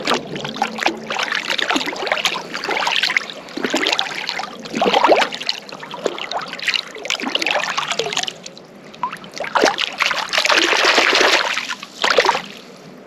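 Water splashing and trickling in irregular bursts of varying length, as a freshly caught redfin is rinsed and cleaned in the water.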